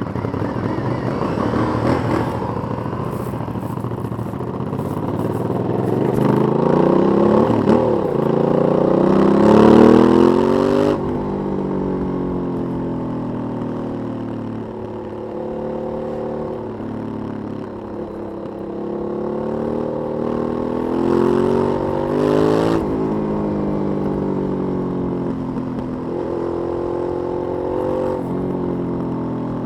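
Aprilia 900 90-degree V-twin on its stock exhaust, riding and accelerating. The revs climb twice, loudest about a third of the way in, and each time drop back suddenly at a gear change or as the throttle closes, with steadier running between.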